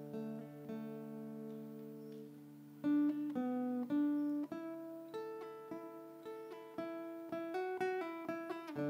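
A sape', the Bornean boat lute, being plucked: a few ringing notes over low held notes, then from about three seconds in a quicker plucked melody that speeds up near the end.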